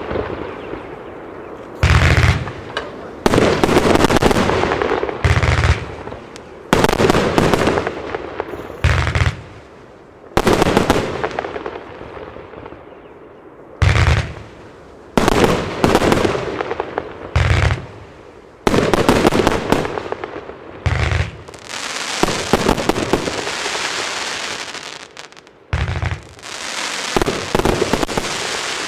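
Evolution Fireworks Mega Willows 108-shot, 30 mm compound firework cake firing: a string of deep launch thumps, one every second or two, each followed by bursting and crackling stars overhead. A longer spell of steady crackle and hiss comes in the last third.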